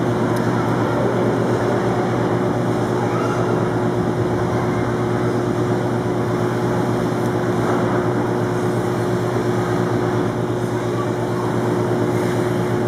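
Steady mechanical drone with a low, constant hum running under it, unchanging throughout.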